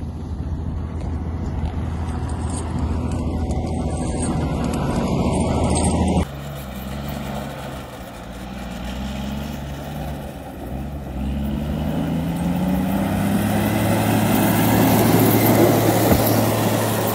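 Diesel engines of snow-clearing machines running under load: first a wheel loader pushing through a snow drift, then, after a sudden cut about six seconds in, a motor grader working with its engine note climbing. The grader is loudest near the end, heard up close.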